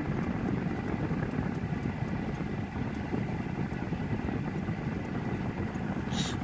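Winix Tower Q (ATQE400 HWK) air purifier running with a steady fan rush of air, and a faint ticking from inside the unit that keeps repeating. The owner takes the ticking for a defect of units made in May 2018.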